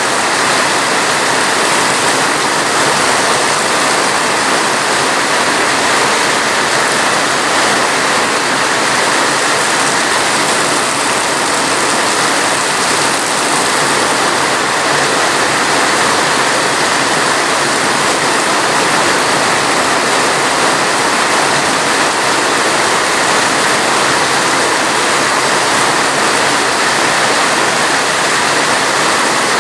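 Steady heavy rain: a dense, even hiss with no separate drops standing out and no change in strength.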